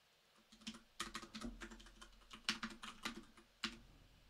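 Typing on a computer keyboard: a quick run of keystrokes that starts about half a second in and stops shortly before the end.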